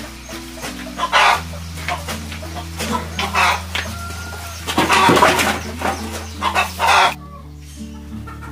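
Chickens clucking in repeated bursts over soft background music; the clucking stops about seven seconds in.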